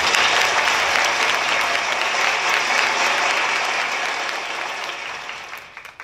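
Audience applauding, the clapping dying away over the last second or two.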